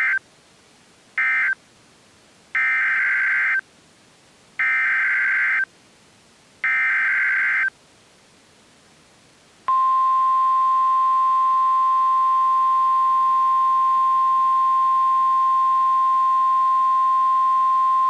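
NOAA Weather Radio alert data and tone. First come two short end-of-message data bursts, then three one-second SAME header data bursts announcing a new tornado warning. About two seconds later the steady 1050 Hz warning alarm tone starts and holds for about nine seconds.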